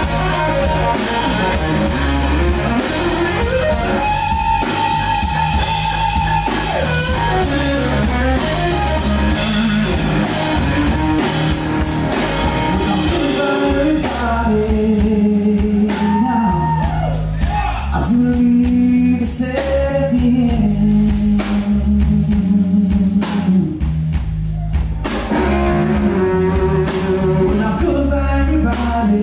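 Live slow-blues band: a Fender Stratocaster electric guitar playing bending, held lead notes over electric bass and drum kit, with a man singing from about halfway through.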